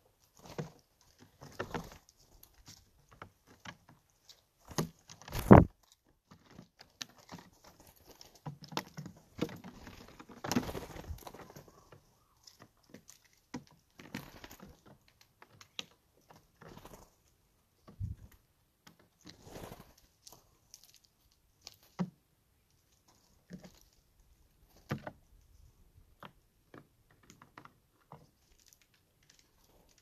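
Irregular taps, knocks and scuffs of Steller's jays landing, hopping and pecking at peanuts in the shell on a flat surface, with one louder thump about five seconds in.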